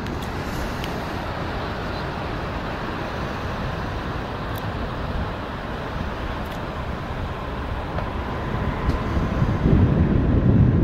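Steady outdoor rooftop noise: wind buffeting the phone's microphone over road traffic from the street below. A louder low rumble swells up near the end.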